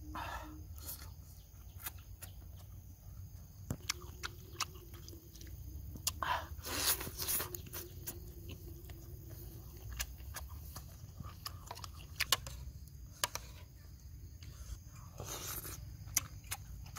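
Close-up chewing of octopus, with many small wet mouth clicks and smacks and a few louder smacking bursts, about six seconds in and again near the end.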